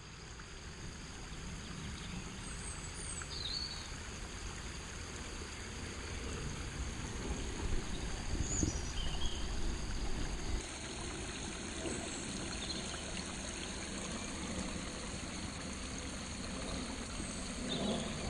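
Water from a small spring trickling and running steadily down a muddy forest channel.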